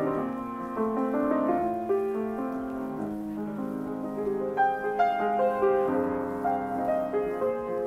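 C. Bechstein grand piano being played: a flowing line of notes over held chords, with a few louder, brighter notes struck about five seconds in.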